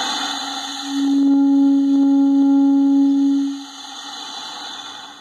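Bass clarinet blown with air hiss left in on purpose: breathy air rushing through the mouthpiece and reed, with one held note sounding over the hiss from about a second in until past the middle, then back to hiss alone. A deliberately dirty, hissy tone in an exercise of turning air into sound.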